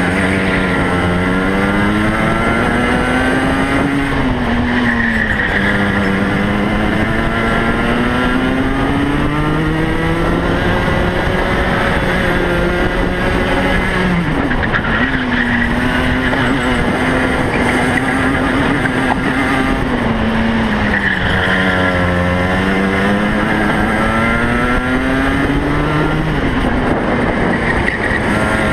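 Two-stroke racing kart engine under full race load, heard from on board. Its note climbs steadily along the straights and drops off each time the kart brakes for a corner, most sharply about halfway through.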